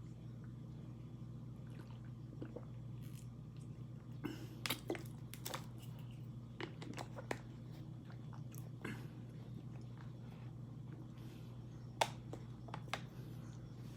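A person chewing a mouthful of dry corn starch, with irregular crisp crunches and squishes, the loudest about four to five seconds in and again about twelve seconds in, over a steady low hum.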